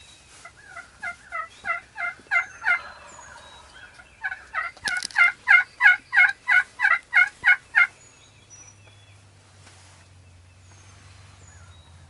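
Turkey yelping close by: two loud series of evenly spaced yelps, about three or four a second, the second series longer and louder. Faint songbird chirps sound behind them.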